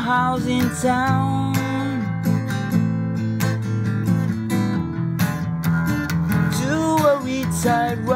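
Acoustic guitar strummed in a slow song, with a man singing a line over it near the start and another near the end.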